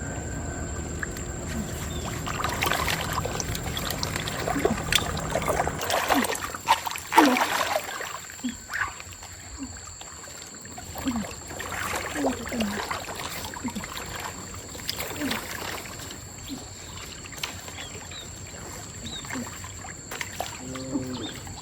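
Water in a stream splashing and sloshing in a string of short, irregular splashes, with a steady low rush that fades about six seconds in.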